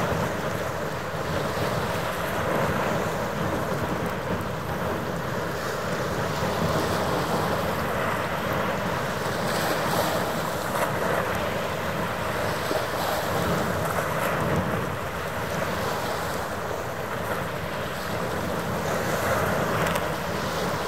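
Wind buffeting the microphone over a steady wash of water, with a faint steady hum underneath.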